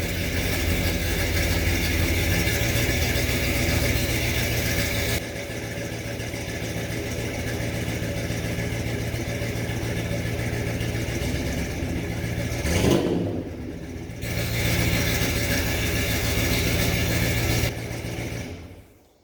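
Car engine idling through a freshly fitted Flowmaster 40 series muffler with no catalytic converter, a little loud, with one brief rev about two-thirds of the way through. The sound stops about a second before the end.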